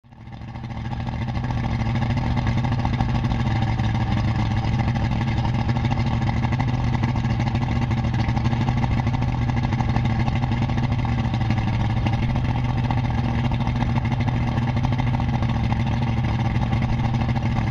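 Ranger bass boat's outboard engine running steadily, rising in over the first second or two and then holding an even pitch.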